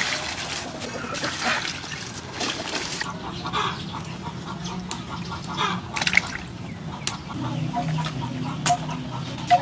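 Water pouring into a metal basin of razor clams for the first few seconds, then splashing and the clicking of the shells as they are rubbed clean by hand. Hens cluck in the background.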